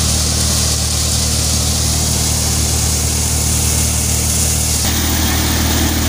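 Kripal Agro paddy thresher running steadily while threshing rice, a steady engine drone under a loud high hiss. The sound shifts slightly about five seconds in.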